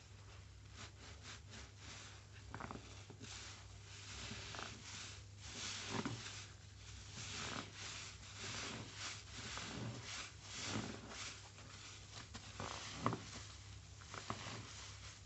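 Soap-drenched sponge being squeezed and kneaded by gloved hands in a tub of suds: irregular wet squelches and the fizz of foam, with a sharper squish near the end.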